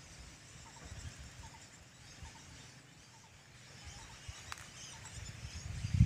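Faint birds calling across the hillside: scattered high chirps and a short two-note call repeating about once a second, over a low wind rumble on the phone microphone.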